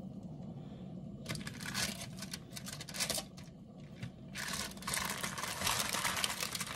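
Aluminium foil lining a roasting pan crinkling and rustling as hot turkey breasts are turned over on it with a fork, in two stretches of crackling, about a second in and again from past the middle, the second longer.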